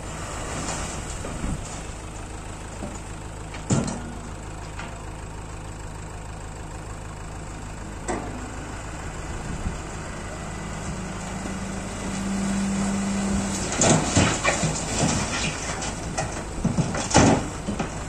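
Dump truck's diesel engine idling steadily with its tipper body raised while the load of earth and rocks slides out. A hum strengthens a little past the middle, then rocks and soil tumble from the bed in a run of loud clattering thuds near the end, with a couple of single knocks earlier.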